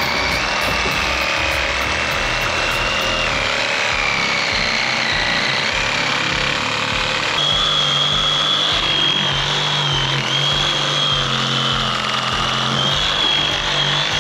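Ryobi reciprocating saw running steadily as its blade cuts through a small tree trunk. Its whine steps up in pitch about seven and a half seconds in.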